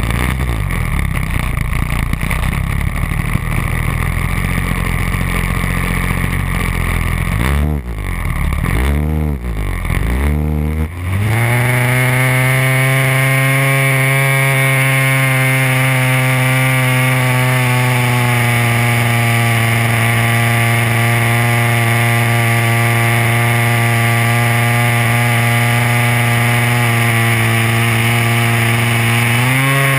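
DLE 30cc single-cylinder two-stroke gas engine of a large RC Beaver model, heard from an onboard camera close to the engine. It runs rough and low for about seven seconds, is blipped up and down a few times, then goes to a steady full-throttle note about eleven seconds in for the takeoff and climb, rising a little near the end.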